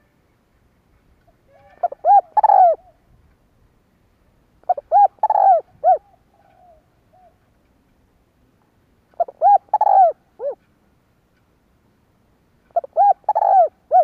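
Spotted dove cooing: four short phrases of quick arched coos, each a few seconds apart. It is the territorial coo used as a decoy call to draw in wild doves.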